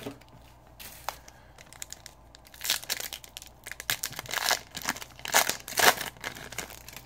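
A trading-card pack's wrapper crinkling and tearing open in several irregular bursts, louder in the second half.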